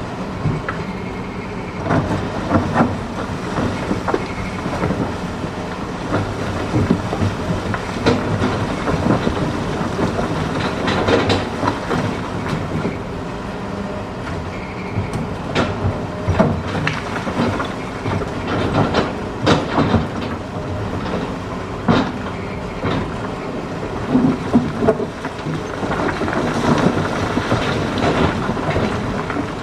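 Hitachi ZX210 excavator's diesel engine running steadily under load while the bucket digs and scoops rock. Irregular sharp knocks and clattering of stones against the steel bucket come throughout.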